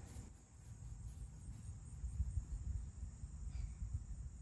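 Faint outdoor ambience: crickets trilling steadily, over an uneven low rumble.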